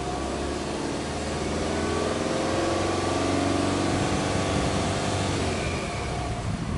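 Subaru Legacy Touring Wagon 2.0GT's turbocharged 2.0-litre flat-four (boxer) engine, heard at its twin tailpipes, revved slowly once: the exhaust note climbs in pitch and loudness over a couple of seconds, then falls back toward idle near the end.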